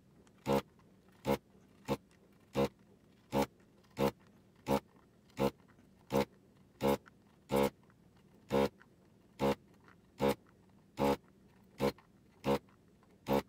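Vacuum pump of a ZD985 desoldering station switching on in short bursts, about one every three-quarters of a second, each time the desoldering gun's trigger is pulled to suck the melted solder from one pin after another of a PLCC chip.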